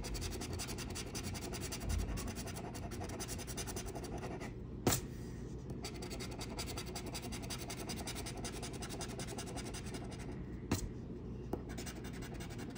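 A knurled metal tool scratching the coating off a paper scratch-off lottery ticket in fast, continuous scraping strokes. The scraping pauses briefly twice, about five seconds in and again near eleven seconds, each time with a single sharp click.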